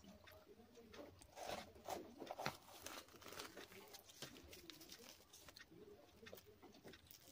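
Faint eating sounds: chewing with small mouth clicks, then the soft tearing of a deep-fried puri pulled apart by hand.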